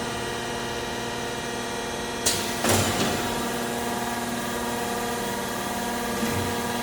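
Hydraulic 3D tube-bending machine running with a steady hum, broken by a sharp clack about two seconds in, a heavier thump just after it, and a lighter knock near the end.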